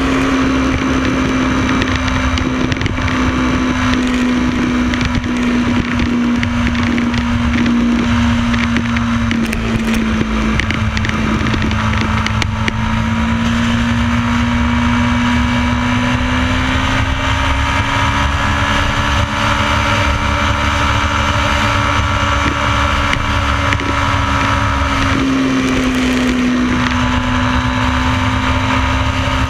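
Motorcycle engine running at a steady cruise, its hum drifting gently up and down in pitch, under a constant rush of wind noise.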